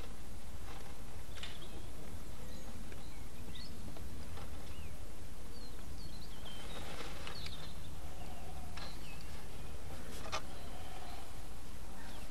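Birds chirping and calling here and there over a steady low outdoor rumble, with a few sharp clicks, the clearest about a second and a half in and about ten seconds in.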